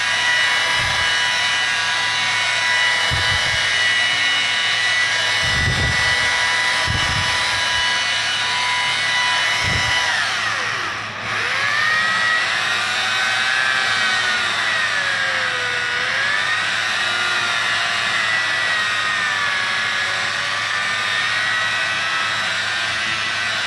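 Electric rotary polisher spinning an 8-inch foam compounding pad against painted bodywork, its motor whine holding steady at first. About ten seconds in the pitch sags sharply and recovers, then wavers up and down as the speed changes. A few low bumps come in the first ten seconds.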